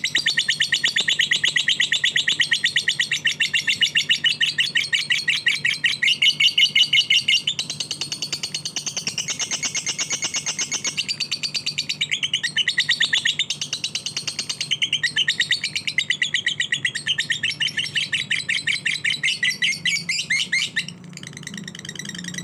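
Lovebird singing a long, fast, unbroken run of shrill repeated chirps, the kind of song that Indonesian keepers call 'fighter'. The pace shifts now and then, and the run stops shortly before the end.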